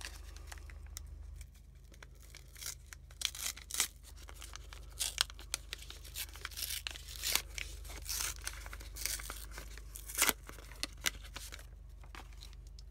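Plastic wrapper of a McDonald's Pokémon 25th Anniversary booster pack being torn open and crinkled by hand, in a run of sharp crackles and short rips that starts about a second in and stops shortly before the end.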